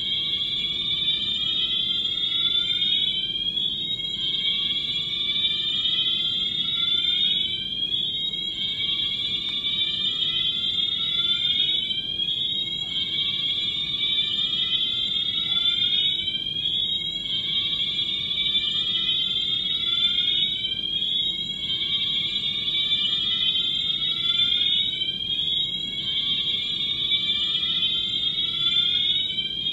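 Fire alarm sirens sounding during an alarm system test: a loud, repeating rising sweep tone, with several sweeps overlapping out of step with one another. The alarm cuts off abruptly at the end.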